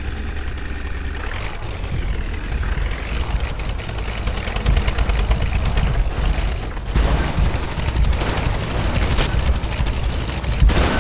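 Heavy diesel engine running hard under load, its rapid firing pulses rattling. The pitch glides up and down early on, and it gets louder about halfway through.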